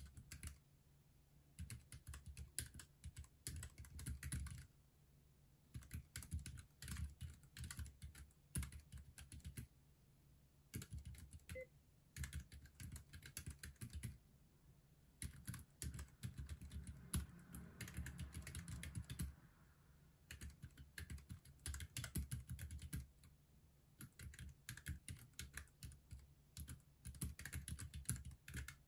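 Keychron K3 mechanical keyboard with black switches being typed on fast, in runs of rapid key clicks a few seconds long with short pauses of about a second between them.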